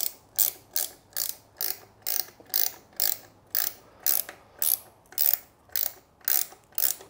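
Hand socket ratchet clicking in a steady rhythm, about two strokes a second, tightening the mounting bolts of a mechanical fuel pump on a small-block Chevy 350.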